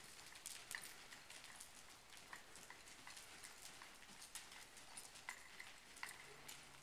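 Faint hoofbeats of an American Quarter Horse gelding trotting on soft dirt arena footing, a string of soft clicks about two to three a second.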